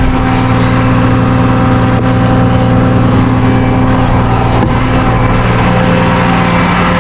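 A heavy engine running steadily at a constant speed. A few short high-pitched beeps come about three to four seconds in.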